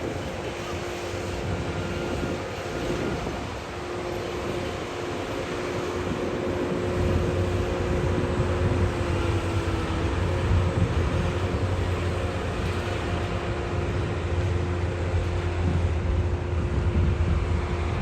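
Heavy diesel engine of earthmoving machinery running steadily, with a low drone that grows stronger about seven seconds in.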